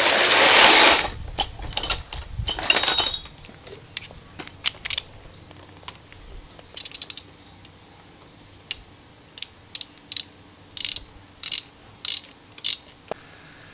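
Metal clicking and rattling of a Honda Dash four-stroke engine's exposed cam chain and spring-loaded tensioner as the chain is pushed by hand to test the tensioner spring and the chain's play. Two louder rattles come in the first three seconds, then a dozen or so light, separate clicks.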